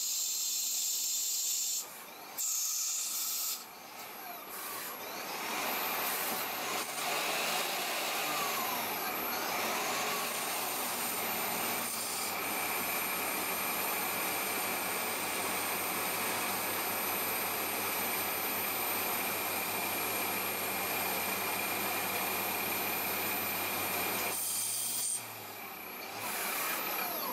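CNC lathe turning metal: a steady hiss of cutting and coolant with a low spindle hum that rises and falls in pitch about seven seconds in, then holds steady. The sound breaks off abruptly and changes around two and four seconds in and again near the end.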